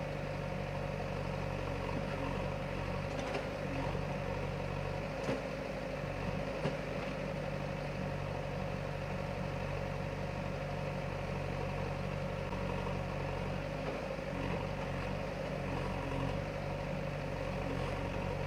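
Diesel engine of a JCB backhoe loader idling steadily with a low hum, and a few faint clicks in the first half.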